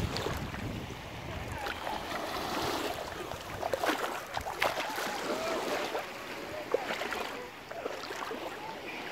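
Small waves lapping at a pebble shoreline in shallow sea water, with a few sharp clicks.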